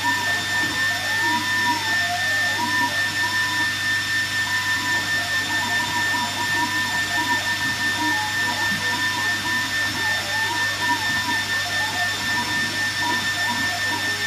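AlgoLaser Alpha MK2 20W diode laser engraver at work: a steady hiss from its air assist, which makes much of the noise, with a steady high whine. Under it the stepper motors whine, rising and falling in pitch as the laser head moves back and forth.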